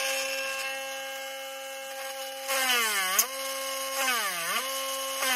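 Handheld rotary tool with a countersink bit whining at steady speed, then three times bogging down in pitch and recovering as the bit is pressed into a hole in a wooden fingerboard deck. Each press adds a loud screech of cutting wood, which is the sign of pressing too hard.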